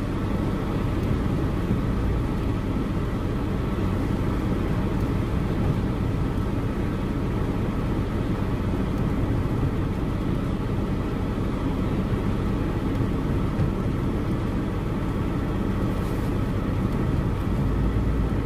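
Steady noise inside a car crawling in traffic in heavy rain: a low engine hum under the even hiss of rain on the windshield and body.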